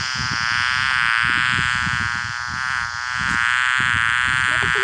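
Buzzing-bee sound effect from an augmented-reality animal app, played through a phone's speaker for its queen bee: one steady, even buzz.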